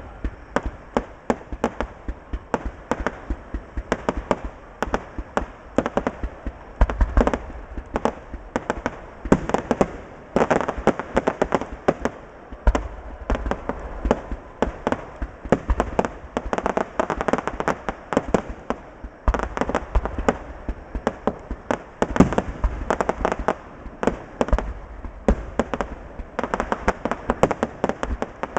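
Fireworks display: a dense, continuous run of bangs and cracks, with stretches of rapid crackling.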